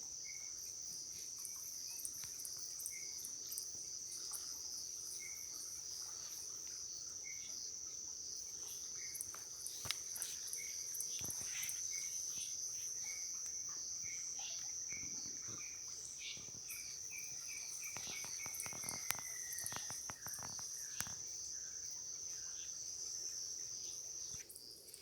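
Evening insect chorus: a steady high-pitched trill of crickets that drops away near the end. Under it a short chirp repeats about once a second, and one call slides downward about two-thirds of the way through.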